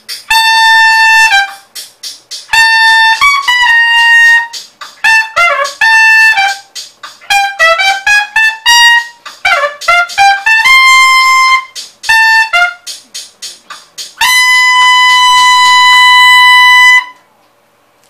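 Unaccompanied trumpet playing short phrases of quick runs and slurred notes, then a long held high note of about three seconds that cuts off a second before the end.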